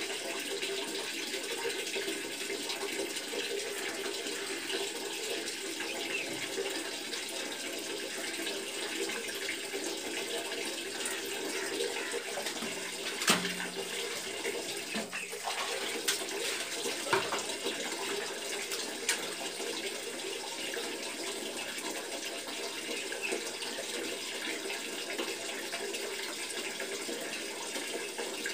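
Water splashing and running onto a tiled bathroom floor as feet are washed and rinsed with water poured from a plastic mug. A sharp knock comes near the middle, with a few lighter clicks after it.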